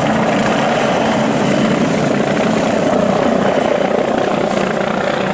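Helicopter sound effect: steady rotor and engine noise, even in level throughout.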